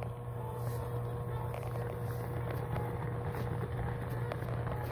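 Steady low hum with a thin, higher steady tone above it and a few faint ticks.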